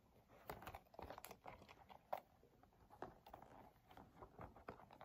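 Faint rustling and small scattered clicks as plastic cards are slipped into a small lambskin leather handbag and the bag is handled.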